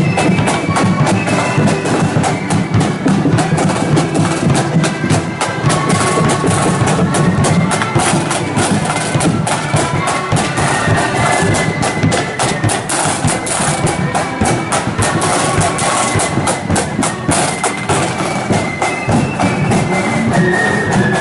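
Marching band playing as it passes: a high melody of held notes over dense, rapid drumming.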